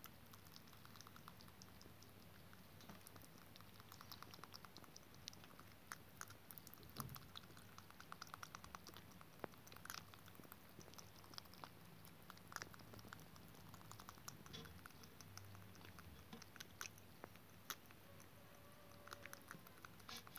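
Rabbit eating soft cream cheese: faint, quick wet clicks of licking and chewing, coming in short rapid runs.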